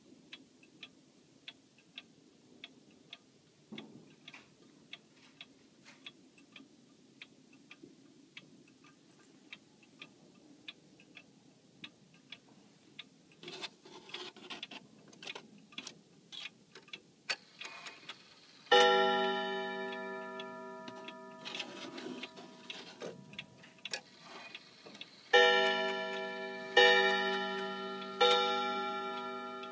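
Regulator pendulum wall clock ticking steadily, then irregular clicks as its hands are turned by hand. Its gong rods then strike once, and a few seconds later three times about a second and a half apart, each stroke ringing and slowly fading: the strike set off as the minute hand is pushed past the half hour and on to three o'clock.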